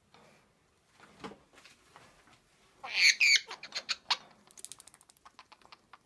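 Young Cape parrot giving two short, loud squawky chirps about three seconds in, followed by a run of quick clicks.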